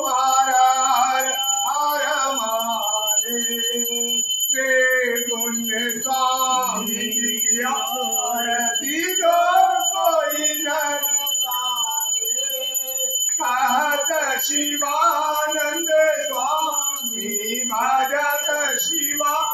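A man singing a devotional chant to Shiva in long, unbroken sung phrases.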